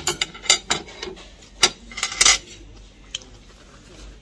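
Knife and fork clinking against a plate while eating: a quick string of sharp clinks over the first two and a half seconds, then one more near the end.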